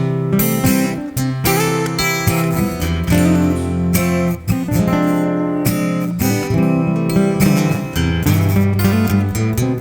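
Acoustic guitar strummed in a steady rhythm, an instrumental break in a country song.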